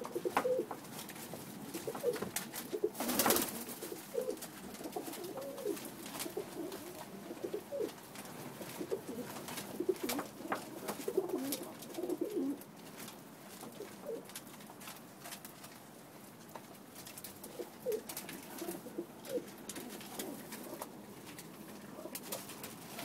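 Pakistani high flyer pigeons cooing, with many short overlapping calls throughout. Scattered clicks run under the cooing, and a louder brief noise comes about three seconds in.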